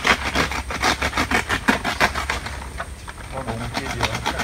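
Coconut palm fronds rustling and crackling as a climber moves through the crown, a dense, irregular run of sharp crackles.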